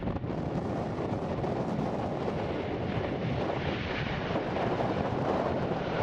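Heavy wind buffeting the microphone, with an Airbus A330's jet engines growing louder as the airliner approaches from about halfway in.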